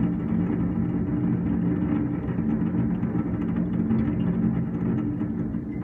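Fireworks bursting overhead in a continuous rolling rumble, with fine crackling throughout, easing off slightly near the end.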